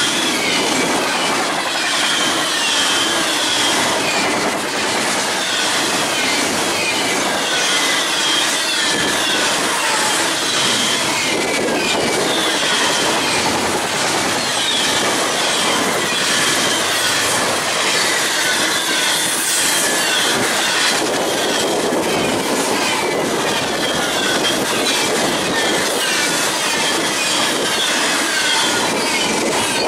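Fast double-stack intermodal freight train rolling past at close range: a steady loud rush of steel wheels on rail, with the clickety-clack of wheels over the rails and short, high-pitched wheel squeals recurring every second or so.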